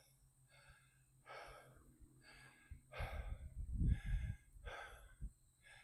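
A hiker breathing hard in short, even puffs while walking, close to the microphone, with a low rumble on the microphone around the middle.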